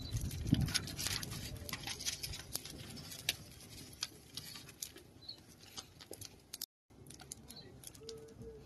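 Open wood-and-charcoal fire crackling with irregular sharp pops as sheets of paper burn in it. The sound cuts out for a moment about seven seconds in.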